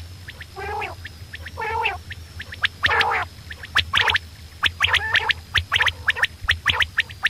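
Quail calling: three short harsh, buzzy calls about a second apart, then a quick run of short, sharp clipped notes through the second half.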